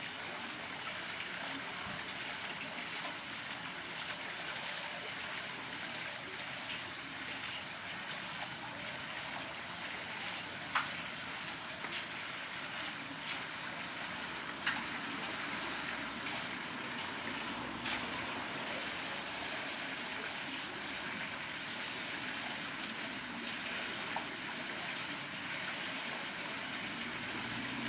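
Wooden mill water wheel turning, with water steadily splashing and trickling off it. A few sharp clicks stand out now and then.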